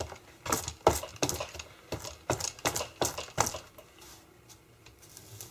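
A sheet of thin paper crackling and tapping as it is handled and laid down: about a dozen sharp, irregular clicks, stopping about three and a half seconds in.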